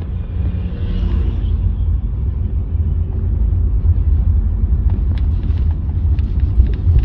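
Steady low road-and-engine rumble inside a moving taxi's cabin, with a few faint clicks about five to six seconds in.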